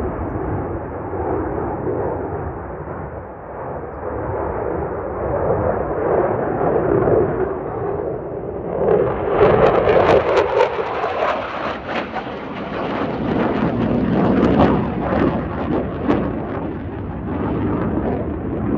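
F-16 fighter jet's engine noise, a continuous deep rumble that turns into a loud, ragged crackling about halfway through as the jet passes close.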